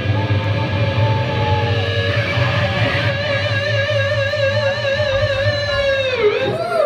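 Live rock band closing a song: an electric guitar holds one long sustained note, which starts to waver with vibrato about halfway through and dips down in pitch twice near the end. A low bass drone sits underneath and fades out before the end.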